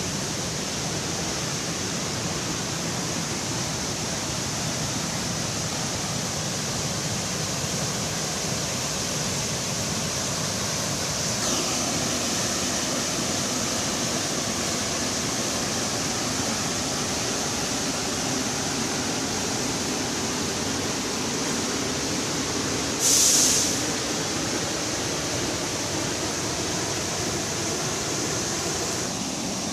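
Waterfall on the Camanducaia River rushing steadily in high flow, a continuous roar of falling water. One brief louder hiss breaks in about three-quarters of the way through.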